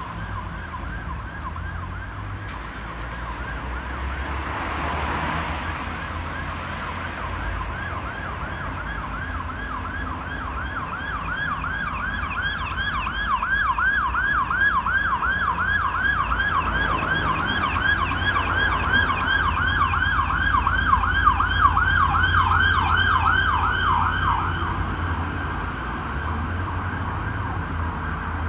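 Emergency-vehicle siren on a fast yelp, rapid rising whoops several a second. It grows louder as it nears and then cuts off suddenly near the end, over the low rumble of street traffic.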